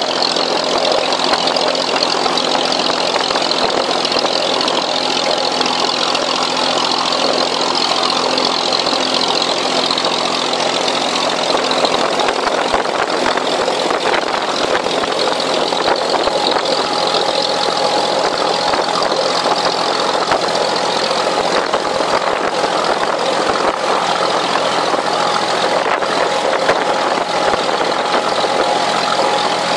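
Inboard diesel engine of a wooden abra water taxi running steadily under way, with water rushing along the hull.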